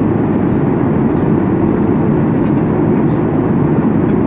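Steady in-flight cabin noise of a Boeing 737 MAX 8-200: airflow and the rush of its CFM LEAP-1B turbofans, heard inside the cabin as an even, deep rushing that does not change.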